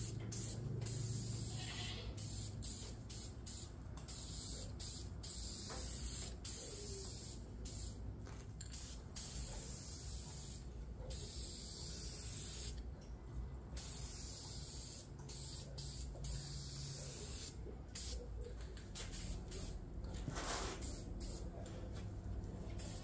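Aerosol can of orange spray paint hissing in repeated spurts with short breaks between them, and a longer pause about halfway through.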